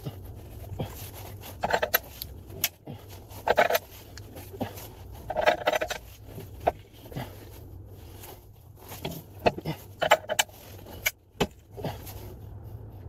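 Irregular metallic clinks and knocks of spanners against the ball joint press tool and its threaded bar as they are fitted and turned on the car's rear lower ball joint, with a few louder clanks spaced a second or two apart.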